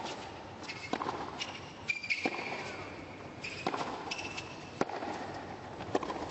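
Tennis ball struck back and forth by racquets in a baseline rally, five crisp hits about one every 1.2 seconds, with shoes squeaking on the hard court between the shots.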